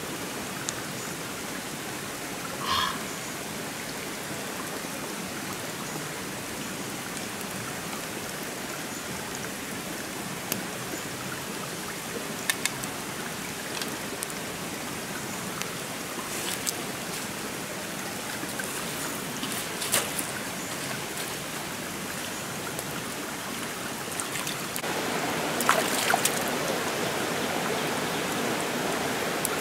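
Shallow creek flowing steadily over stones, with a few sharp light clicks and taps scattered through it. The water gets louder near the end.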